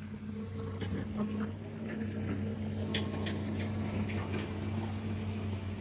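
Diesel engine of heavy road-building machinery idling, a steady low hum. Faint crunching footsteps on gravel come over it about twice a second.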